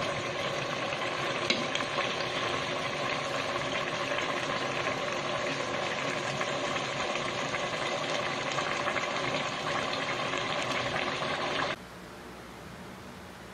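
Jackfruit in coconut milk simmering and sizzling in a metal pot on the stove, with a spoon stirring and one light knock about a second and a half in. It cuts off suddenly near the end, leaving a faint hiss.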